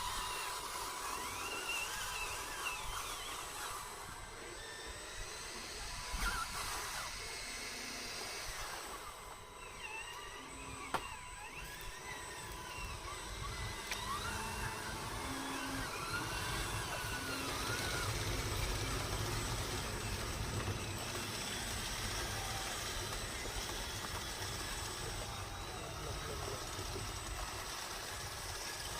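Radio-controlled model bulldozer running, its small electric motors whining and gliding up and down in pitch over a steady hiss, with a low rumble in the second half and one sharp click about eleven seconds in.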